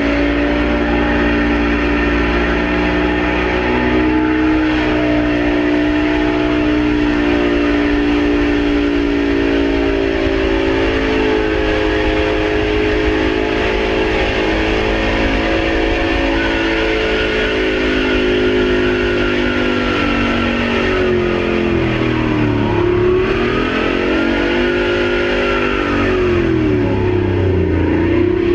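Engine running flat out at a high, steady speed, its pitch sagging and climbing back twice near the end. It is a runaway: a burst turbocharger lets the engine feed on its own oil, so it cannot be shut off.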